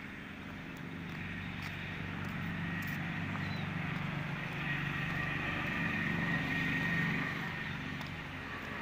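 Motor vehicle running on the road: a steady engine hum with tyre and road noise, growing louder to a peak about seven seconds in, then easing off.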